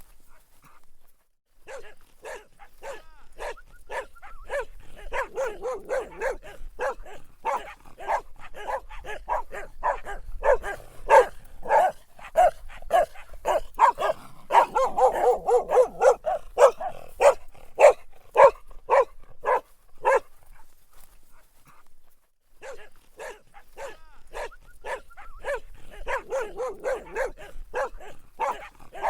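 Dog barking over and over in quick, short barks, with a pause of about two seconds roughly two-thirds of the way through before the barking picks up again.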